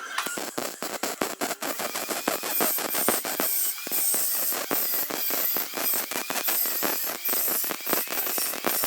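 Welding arc crackling and spattering on the Vespa PX's steel floor panel, a fast irregular stream of sharp pops with a high hiss, broken by short pauses.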